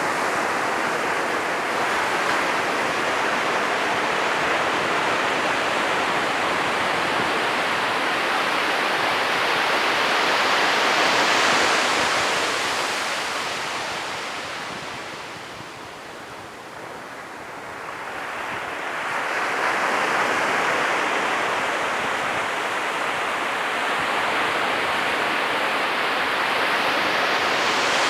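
Ocean surf breaking on a beach: a steady rushing wash that swells to a peak about twelve seconds in, eases into a brief lull, then builds again as the next wave comes in.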